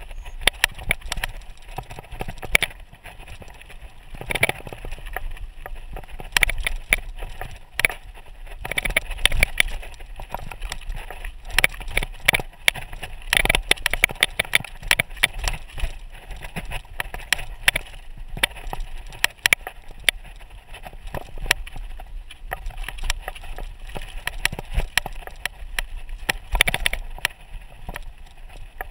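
Mountain bike riding fast down a loose gravel and rock trail: tyres crunching over stones, with a dense, irregular clatter and rattle of the bike over the bumps and a steady low rumble underneath.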